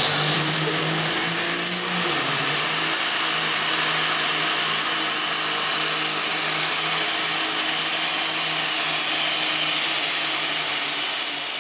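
Mack Superliner pulling truck with a Cummins K-series diesel running at full power while dragging a pulling sled. A high turbocharger whistle rises steeply over the first two seconds and then holds steady over the engine's constant drone.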